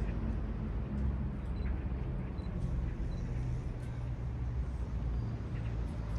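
Wind buffeting the microphone outdoors: a dense, uneven low rumble.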